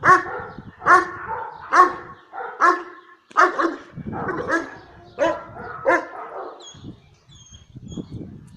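Kangal shepherd dog barking repeatedly, about once a second, agitated by a decoy in protection training. The barking stops about two-thirds of the way through, followed by faint bird chirps.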